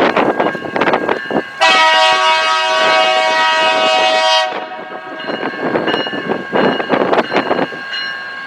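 Diesel locomotive horn sounding one long held blast of about three seconds, starting a couple of seconds in. Uneven rushing noise from the passing train runs before and after it.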